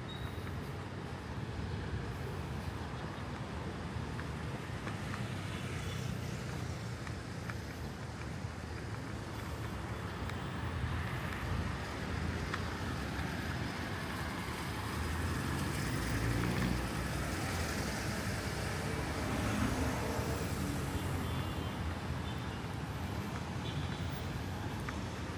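City street traffic: a steady rumble of car, truck and motorcycle engines and tyres on the road, swelling a little past halfway as vehicles pass close by.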